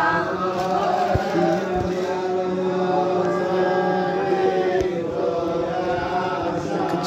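Voices chanting a slow prayer melody, with long held notes over a steady low drone.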